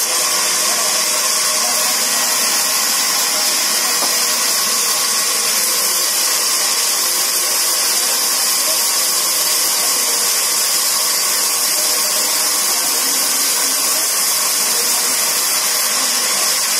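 Large vertical band saw in a sawmill running and ripping lengthwise through a log, a steady, high rushing noise that does not let up.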